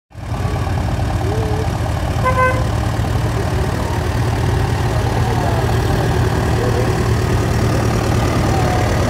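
Several vintage tractor engines running as a slow procession drives past, a steady low rumble. A brief beep-like tone sounds about two seconds in.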